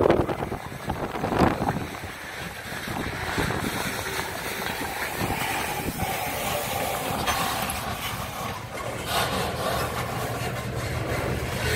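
Covered hopper cars rolling slowly past on the rails during switching, with steady wheel-on-rail noise. Two sharp knocks come near the start, and a low rumble builds near the end.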